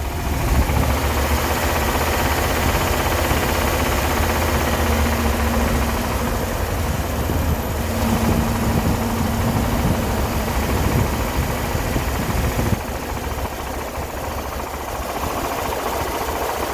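Dodge B350 van's engine running under way in first gear, with a light ticking that the owner thinks comes from the valves. The engine note drops about thirteen seconds in.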